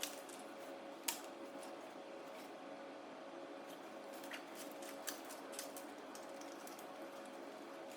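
A few light, scattered clicks and taps, the sharpest about a second in, over a steady faint hum.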